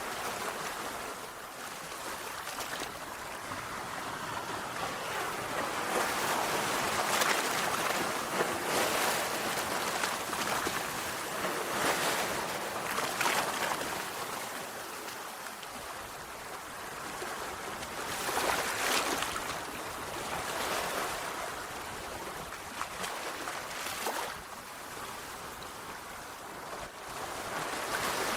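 Sea waves breaking and washing on the shore, a continuous rushing surf that swells with each breaker every few seconds.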